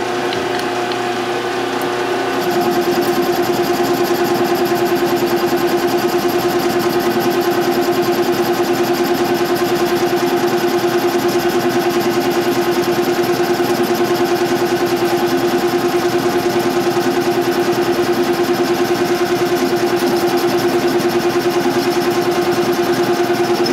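Metal lathe running with a steady whine while a boring bar cuts inside eccentrically chucked steel tubing. From about two seconds in the cut gets louder with a fast, even pulsing, the off-centre bore making it an interrupted cut.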